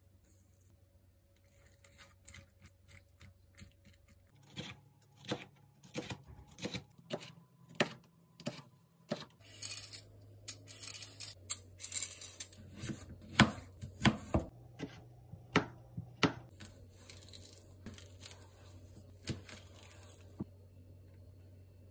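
Vegetable prep on a plastic cutting board: a hand peeler scraping strips off a cucumber and a kitchen knife clicking and tapping against the board, a long irregular run of sharp clicks and scratchy scrapes that stops shortly before the end.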